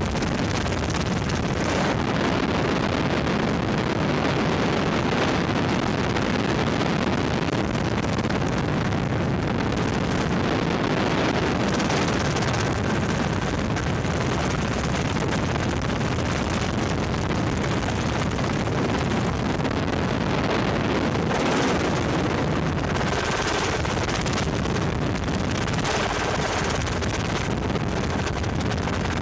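Steady engine and rotor noise of a helicopter in flight, heard from inside the cabin.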